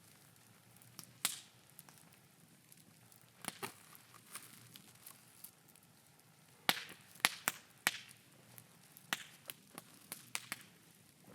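Wood bonfire crackling, with irregular sharp pops and snaps from the burning scrap wood, and a cluster of louder pops a little past the middle.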